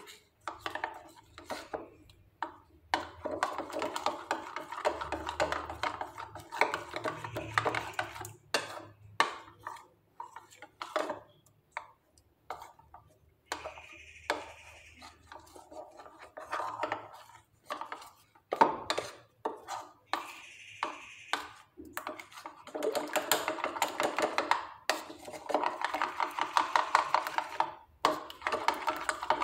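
Metal spoon stirring a thick custard-powder and milk-powder paste in a ceramic bowl: quick, repeated clinks and scrapes against the bowl, pausing a few times.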